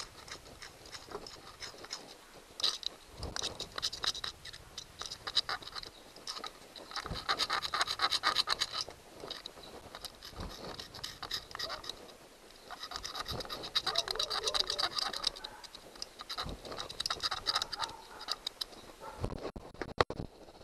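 Small screwdriver scraping carbon buildup from the armature end of a Johnson 90 hp outboard's electric starter motor, in four or five bouts of scratching. A few sharp knocks come near the end.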